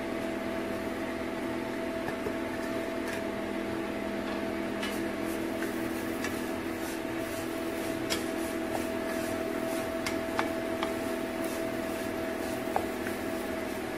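Steady mechanical hum from a running kitchen appliance or fan, with a few faint ticks and rustles as a hand tosses grated plantain in a nonstick pan.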